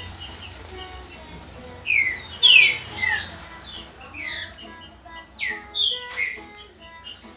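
Green-winged saltator (trinca-ferro) singing: phrase after phrase of clear, downward-slurred whistled notes, loudest about two to three seconds in.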